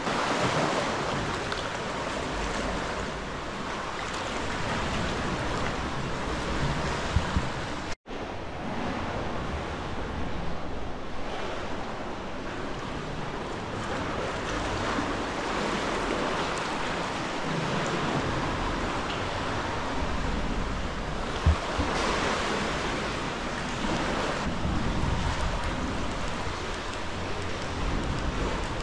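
Sea swell washing and lapping around a sea kayak and against the rock walls of a sea cave, a steady wash of water. A sharp knock comes about two-thirds of the way through.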